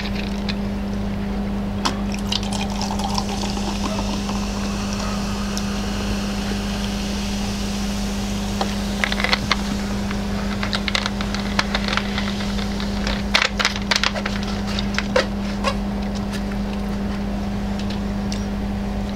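Broth simmering and bubbling in an electric hot pot over a steady hum, with scattered clicks and smacks of utensils and eating, thickest around the middle.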